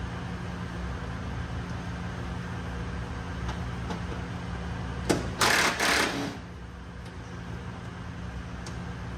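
A cordless impact driver runs in one burst of a little over a second, about five seconds in, over a steady low mechanical hum.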